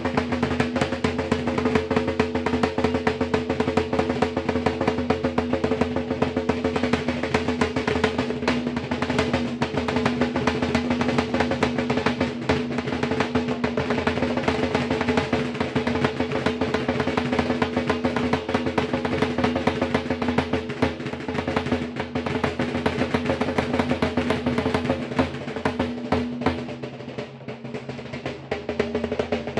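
Lambeg drums beaten with canes in fast, continuous rolls, the big drumheads ringing with a steady hum under the dense strokes. The playing eases slightly near the end.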